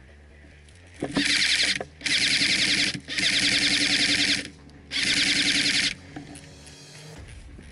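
Airsoft electric rifle firing four full-auto bursts of about a second each, a rapid mechanical rattle with the gearbox motor whining beneath.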